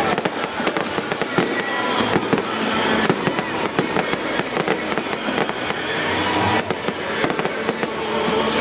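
Aerial fireworks bursting overhead: a dense, continuous run of pops and crackles from the exploding shells and their stars.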